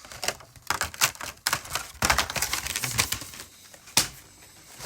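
Cardboard trading-card box and its packaging being handled: a quick, uneven run of clicks, taps and crinkling, busiest about two seconds in.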